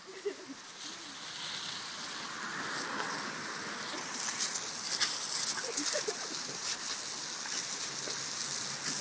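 Garden hose spraying water, a steady hiss and patter that grows louder about four seconds in, with a few faint short dog whines.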